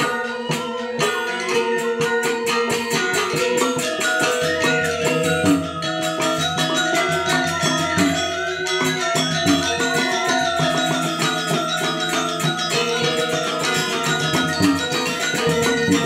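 Balinese gamelan playing Legong music: ringing bronze metallophone tones over dense, rapid strokes.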